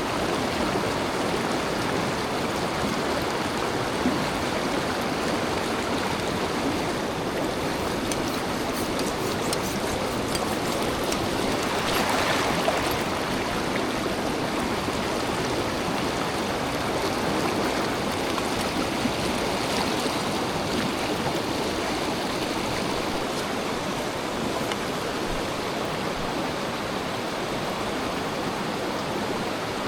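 Mountain stream water rushing steadily, with a brief louder swell about twelve seconds in.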